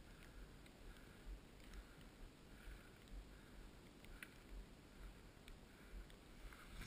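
Near silence, with faint low rumbles and soft, short rustles repeating about every second, and a few faint ticks.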